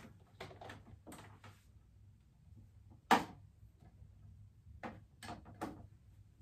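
A series of light knocks and clicks, with one much sharper knock about three seconds in, over a low steady hum.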